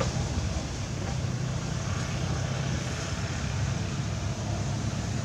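Steady low rumble with an even hiss of outdoor background noise, with no distinct events.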